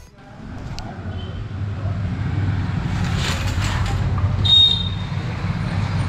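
Steady low background rumble that fades in at the start, with a brief high chirp about four and a half seconds in.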